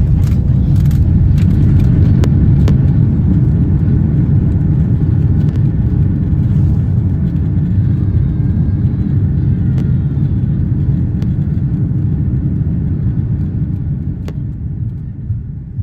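Loud low rumble heard from inside the cabin of an Airbus A330-200 rolling out after landing, from its engines and wheels on the runway, dying away near the end as the airliner slows.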